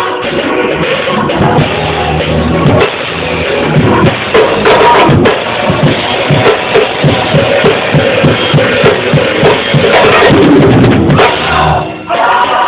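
Praise music with a drum kit driving a quick, steady beat of bass drum and snare, with cymbals, played loud. The music dips briefly near the end.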